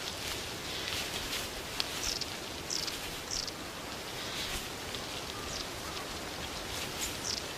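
Outdoor forest ambience: a steady hiss with short, high chirps that slide downward in pitch, every second or so.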